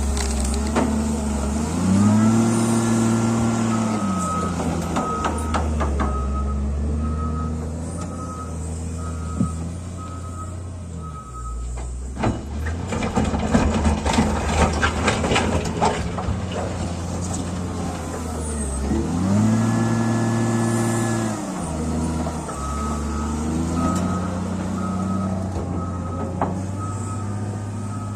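Diesel engine of heavy construction machinery working, revving up and back down twice, with a reversing alarm beeping over long stretches. Around the middle comes a few seconds of loud clattering and rattling.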